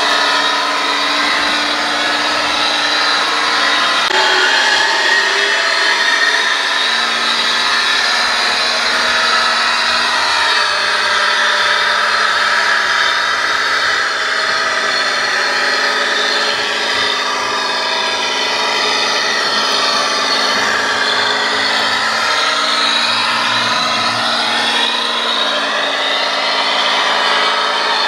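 Whine of a radio-controlled Claas Xerion model tractor's electric drive motor and gearbox as it drives and pulls a trailer, steady but rising and falling in pitch as it speeds up and slows down.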